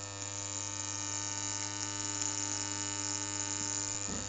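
Gas igniter's electric spark buzzing steadily inside a steel pipe: a mains hum with a hiss over it. A short low sound comes near the end.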